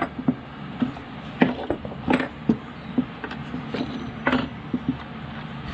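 Homemade clamps of threaded steel rods, wing nuts and wooden discs being loosened and pulled off a glued wooden instrument body. The parts knock and clatter in irregular sharp clicks, about a dozen.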